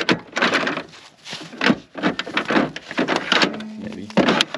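Hard plastic clunks, clicks and sliding of an 80V lithium-ion battery pack being released and lifted out of its slot in a Greenworks battery snowblower's battery compartment, a string of separate knocks.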